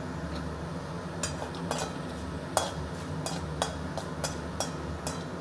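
Spatula stirring whole spices frying in hot mustard oil in a kadai, knocking against the pan about eight times from about a second in, over a steady low sizzle. The spices are being tempered, with a little sugar added to caramelise for colour.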